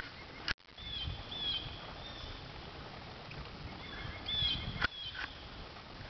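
Birds calling outdoors in short, high whistled notes: a few about a second in and a cluster near four seconds, over a low rumble. A sharp click about half a second in cuts the sound out for a moment, and two more clicks come near the end.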